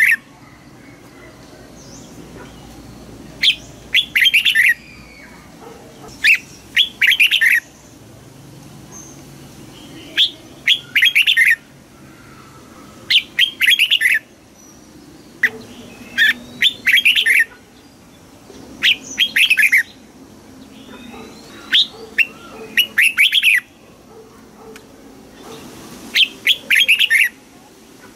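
Red-whiskered bulbul singing: short, quick phrases of bright whistled notes, repeated about every three seconds.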